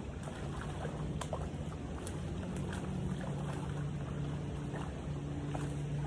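A steady low motor hum that grows stronger partway through, over wind noise on the microphone, with a few scattered light ticks.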